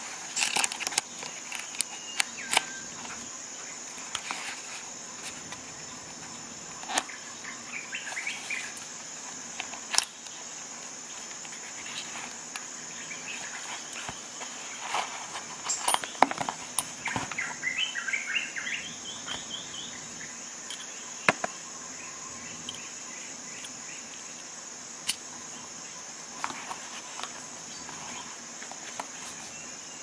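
Scattered small clicks and clinks of metal tools and screwdriver bits knocking together as a multi-tool, ratchet and bit holder are packed into a nylon pouch, with fabric rustle. A steady high-pitched hiss runs underneath.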